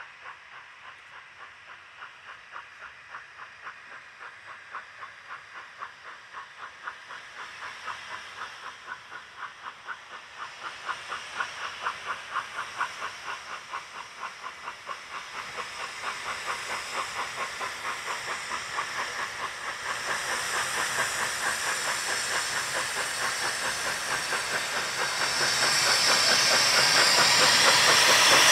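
South African Railways NGG16 Garratt No. 87, a narrow-gauge articulated steam locomotive, approaching with a train: its exhaust chuffs in a fast, even rhythm that grows steadily louder. A loud steam hiss builds over the last few seconds as it draws level.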